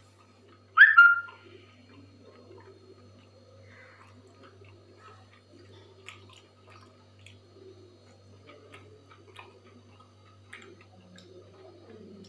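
Faint eating sounds, with small clicks of food and fingers at the plate, over a steady low hum. About a second in comes one short, loud, high whistle-like call.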